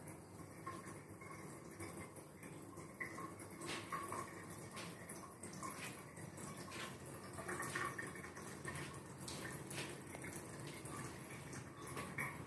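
Faint room tone in a tiled bathroom, with scattered soft clicks and ticks at irregular intervals, roughly one every second or so.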